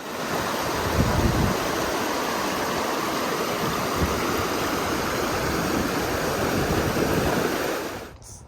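Klamath River water rushing over rocks, a steady wash of noise with a couple of low rumbles, cutting off suddenly near the end.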